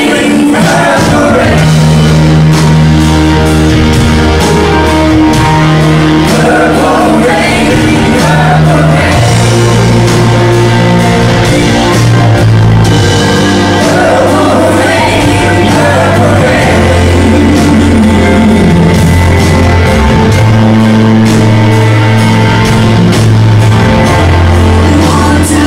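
Live rock band playing with group vocals: electric guitar, bass, keyboards and cello under several singers. Held bass notes change every few seconds beneath sustained chords.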